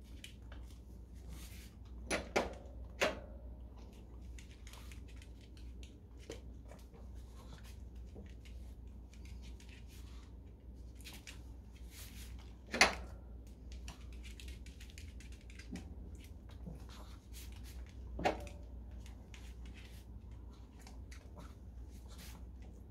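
Chihuahua's claws clicking on a laminate floor as it moves about, with a few louder sharp sounds: three close together early on, the loudest near the middle and one more a few seconds later.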